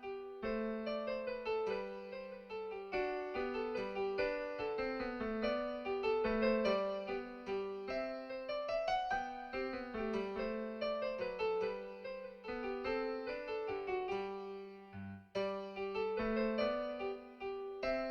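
Piano music: a steady stream of quick notes, with a brief pause about fifteen seconds in.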